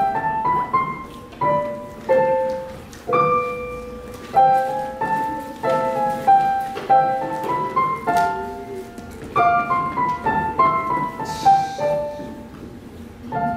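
Solo piano playing a slow melody: single notes and chords struck one after another at an even pace, each ringing out and fading before the next.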